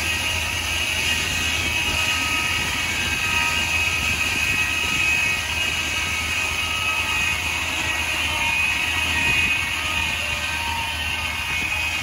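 Foley Belsaw circular sawmill's large circular blade cutting lengthwise through a big pine log as the carriage feeds it past, with the engine driving the mill running steadily under load. A steady, unbroken whine of the blade in the wood.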